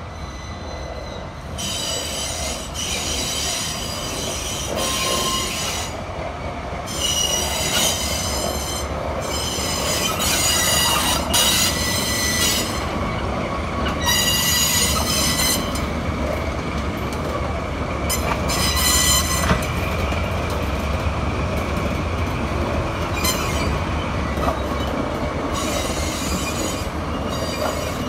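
Nagoya Rinkai Railway diesel locomotives hauling a train slowly past, their engines making a steady low drone. Over it, the wheels squeal high-pitched again and again, each squeal lasting a second or two.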